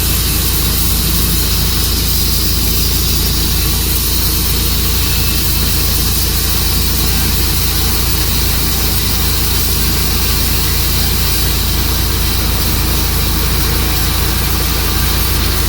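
Tru-Cut sawmill's engine running steadily as the mill cuts through a juniper log, a constant engine hum with a hiss above it.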